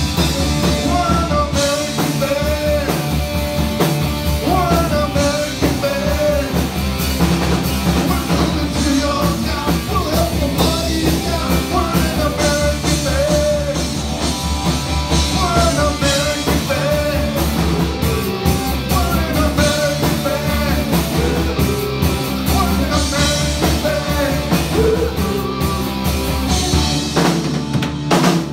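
Live rock band playing: electric guitars, bass guitar and a drum kit, with a man singing over it.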